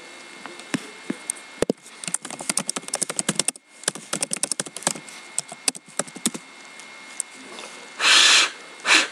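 Rapid clicking of a laptop keyboard being typed on, with a brief pause partway through, followed near the end by two loud breath sounds, the first about half a second long.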